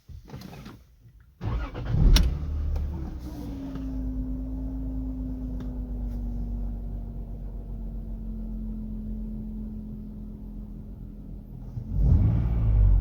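2002 Lexus IS300's inline-six starting about a second and a half in, flaring up, then settling to idle with a steady whine that slides slightly down in pitch and holds. There is a short rev near the end. The whine has persisted after a new timing belt, water pump, seals and VVT-i gear; the owner wonders whether it is the oil pump.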